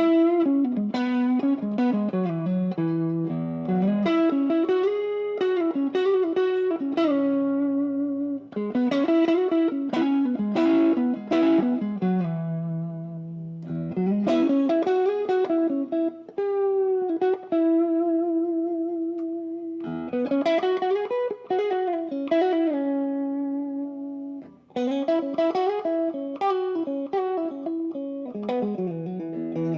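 Tokai Silver Star electric guitar played through an amp: single-note melodic lead phrases, with notes gliding up and down in pitch and some held notes. The phrases are broken by a few short breaks.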